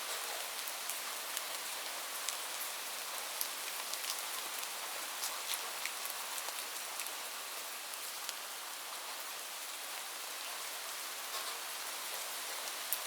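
Steady rain falling, a continuous hiss with scattered sharp ticks of individual drops.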